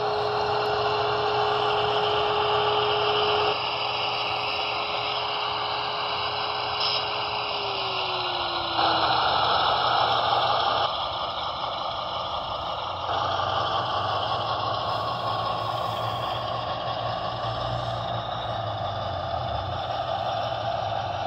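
Broadway Limited Paragon 3 AC6000 model locomotive's onboard sound system playing GE diesel engine sounds: a steady engine drone with a whine, changing in steps several times, with the whine falling away about eight seconds in.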